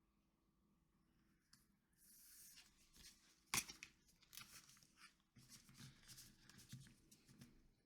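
Tarot cards being handled and gathered up: faint rustling and sliding, with one sharp tap about three and a half seconds in, then a run of small rustles and taps.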